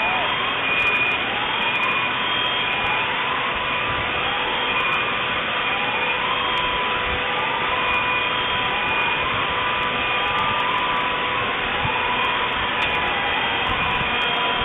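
Electronic alarms sounding over a steady loud rushing noise: one tone sweeps upward about once a second, others hold steady, and short high beeps come and go.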